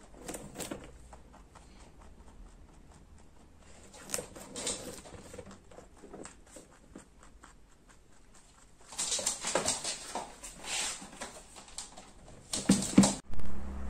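Pet rabbit chewing a carrot: a run of small, irregular crunching clicks, growing louder with noisier bursts from about nine seconds in.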